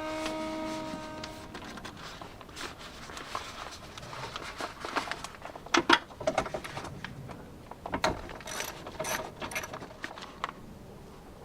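Hand tools working bolts inside a car door: irregular metallic clicks, taps and ratchet-like ticking, loudest about six and eight seconds in, some with a brief high ring.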